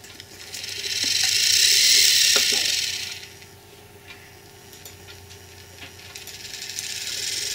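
Motor and gearbox of a Liliput H0 model track motor car (OBW 10) running along the rails on its first run under digital control. It gives a high whir that swells for about two seconds and fades, then rises again near the end.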